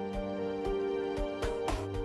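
Background music: held instrumental chords that change every second or so, with a soft beat of percussive hits.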